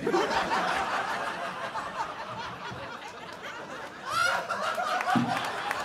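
Audience laughing, many voices together, easing off and then swelling again with one louder laugh about four seconds in.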